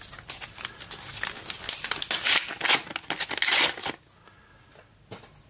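Trading card pack wrapper crinkling and tearing as a pack is opened, for about four seconds, with a light click about a second before the end.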